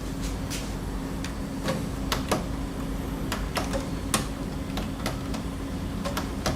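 Irregular sharp clicks and taps from an infrared TV remote control being handled and its buttons pressed, over a steady low hum.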